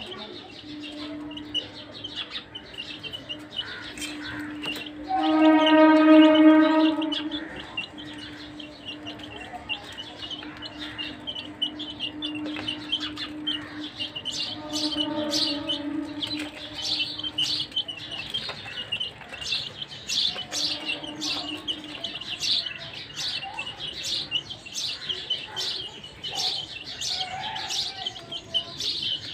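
A group of chicks peeping: many short, high chirps, coming thicker in the second half. Under them runs a steady humming tone, loudest for about two seconds near the start and returning more faintly twice later.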